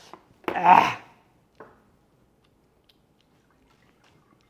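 A man's short vocal outburst about half a second in, then a faint click and near silence with a few light ticks.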